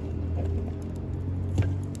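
Firewood crackling in a campfire over a steady low rumble: a sharp pop at the start and a louder one about one and a half seconds in.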